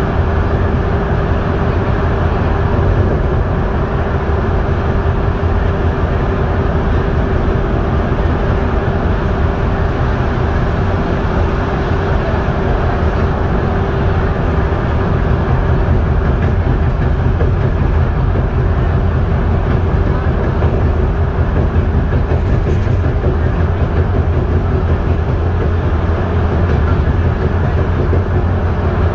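Bus cruising at motorway speed, heard from inside the cabin: a steady drone of engine and tyre noise, with a faint steady whine that fades out about halfway through.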